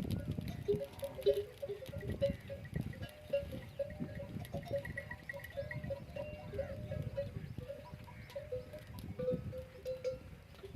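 Bells worn by a camel herd clinking irregularly as the animals move, over the low rumble of heavy wind on the microphone.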